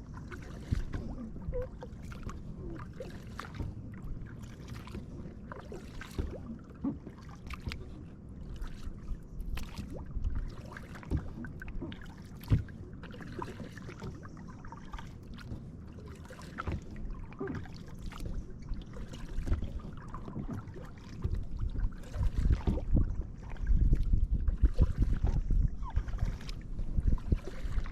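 Kayak paddle strokes: the blades dip and splash in the river water and drip between strokes, in an uneven run of splashes about a second apart. From about three-quarters of the way through, a heavier low rumble of wind on the microphone joins in.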